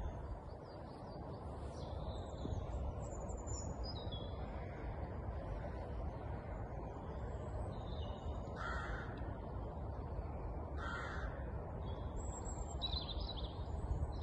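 Outdoor bird calls: small birds chirping and trilling, with two short, harsher calls about nine and eleven seconds in, over a steady low background rumble.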